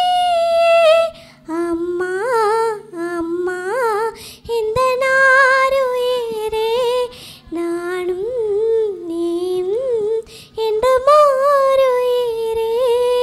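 Young girl singing solo into a handheld microphone with no accompaniment, in a sharp voice: a long held note, then winding, ornamented phrases, ending on another long held note.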